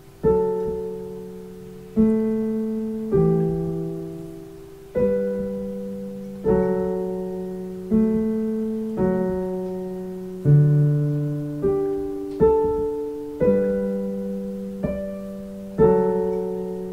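Slow chords played on a digital piano in the middle register, a new chord struck about every second or so, each left to ring and fade before the next.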